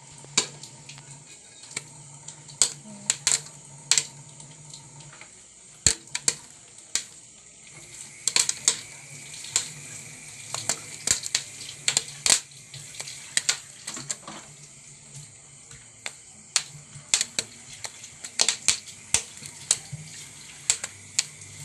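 Popcorn popping in a covered metal pan on the stove: sharp, irregular pops, a few a second, over a steady hiss.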